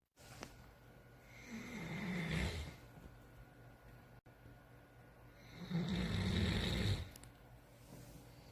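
Snoring: two long snores about four seconds apart, the first starting about a second and a half in and the second a little before six seconds in.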